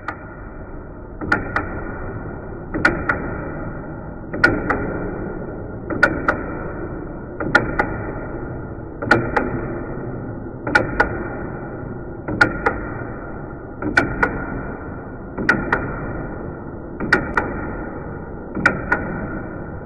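Rhythmic hand-tool work on the knife: a stroke roughly every second and a half, each marked by a pair of sharp clicks.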